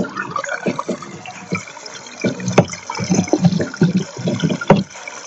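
Water churning and sloshing in a semi-automatic washing machine's tub, in irregular surges.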